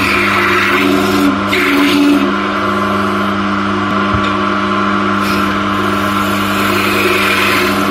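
Wood lathe running with a steady motor hum while a long-handled turning tool hollows the inside of a spinning linden-wood blank. The cutting comes as hissing, scraping bursts near the start and again near the end, with a lull in between.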